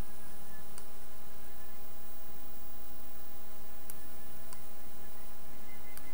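Steady electrical hum made of several constant tones, with a few faint clicks.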